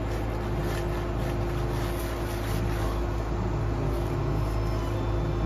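An engine running steadily at one constant speed, a low, even drone with no revving.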